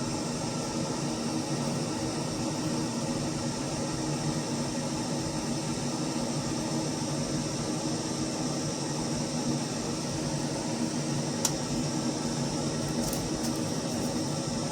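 Steady whir and hum of a CNC router rig running a 50 W laser, its fans and motors droning evenly, with one sharp click about three-quarters of the way through.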